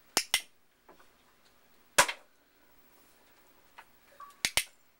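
Handheld dog-training clicker snapping: a quick double click near the start, a single sharp click about two seconds in, and another double click near the end. The clicks mark the puppy's sit for a food reward.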